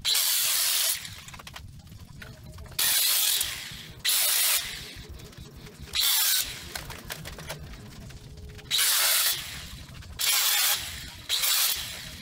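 Handheld power tool run in seven short bursts of under a second each against the rusty steel front frame rail of a 1954 VW bus while the frame is being stripped.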